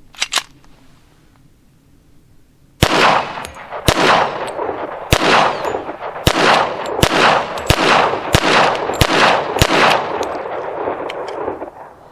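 Nine shots from a Hi-Point .45 ACP pistol firing 200-grain lead semi-wadcutter reloads, the first about three seconds in and the rest roughly a second or less apart, each followed by a trailing echo. The pistol feeds and fires every round without a stoppage. A couple of light clicks come just before, about half a second in.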